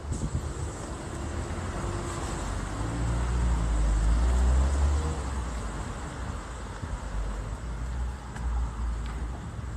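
A motor vehicle passing on a road: a low engine and tyre rumble that swells to its loudest about four to five seconds in, then fades away.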